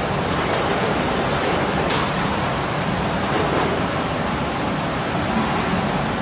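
Steady, loud rushing noise of a gas-heated food-processing machine running, with a brief clatter about two seconds in.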